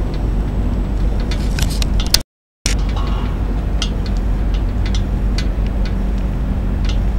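A steady low engine drone with a constant hum, sprinkled with faint light ticks. The sound cuts out completely for about half a second a little over two seconds in, then carries on unchanged.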